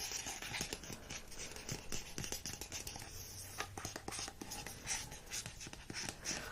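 Soft, close-up scratching with many small clicks and taps, the kind of hand-made trigger sound used in ASMR.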